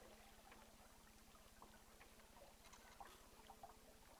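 Near silence, with a faint steady hum and a few faint, scattered small ticks and knocks.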